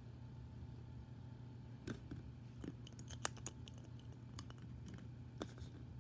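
Scattered light clicks and taps of hands handling small toys, a handful clustered a little after the middle, over a faint low steady hum.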